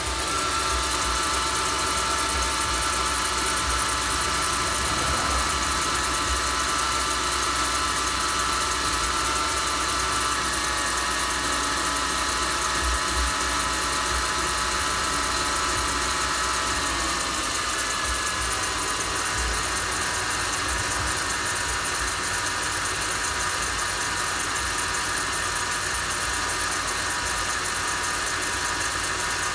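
Mercedes-Benz GL450's M273 V8 engine idling steadily after a cold start in frost, with a faint whining tone that slides lower in pitch about halfway through.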